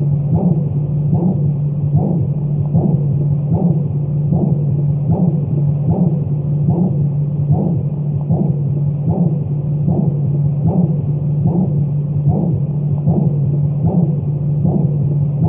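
Heartbeat sound: soft, even beats at about 75 a minute over a steady low hum, for lulling a baby to sleep.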